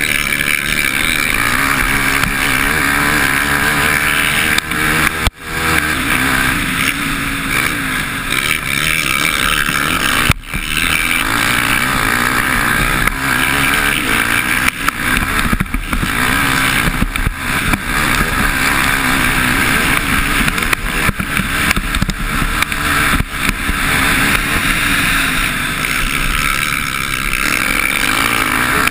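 Motocross bike engine running hard from an on-bike camera, the revs rising and falling with throttle and gear changes, under heavy wind rush on the microphone. The sound drops sharply for a moment about five seconds in and again about ten seconds in.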